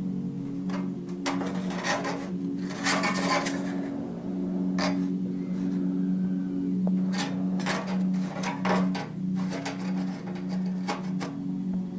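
Sheet-steel pieces scraping and clinking against each other as a formed steel strip is handled and fitted over a welded repair patch, in short irregular scrapes and taps over a steady low hum.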